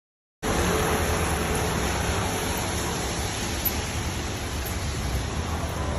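Steady rushing hiss of water on a car's windshield with a low hum beneath, starting abruptly about half a second in.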